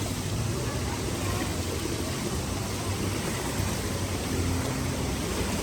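Steady rush of running and splashing water from a water park pool feature, with a low rumble underneath.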